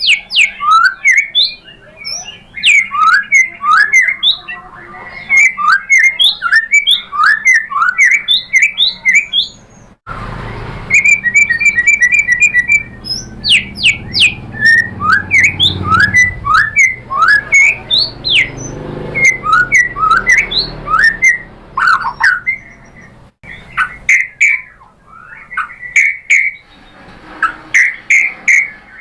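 White-rumped shama (murai batu) singing a fast, varied song of short sweeping whistles and sharp clicks, with a rapid trill about a third of the way through. The recording cuts abruptly twice, and after the first cut a low rumble sits behind the song.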